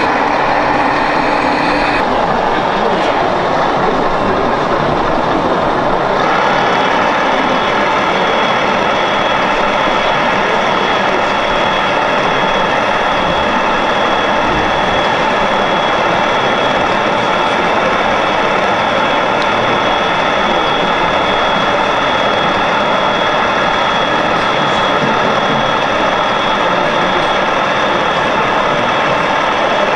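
Steady diesel-engine drone from the sound modules of RC construction models, heard over the background noise of a busy exhibition hall.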